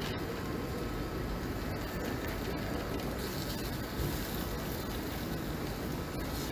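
Sliced onion frying in oil in a pan, a steady sizzle, with a few light clicks of the spatula against the pan as it is stirred.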